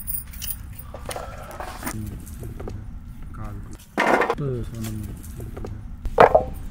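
People's voices talking in the background, with light clinking and rattling of metal utensils and dishes.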